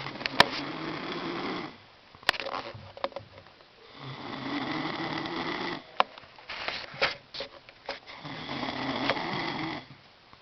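A little boy snoring in his sleep: three long snores about four seconds apart, with small clicks and sniffs between them.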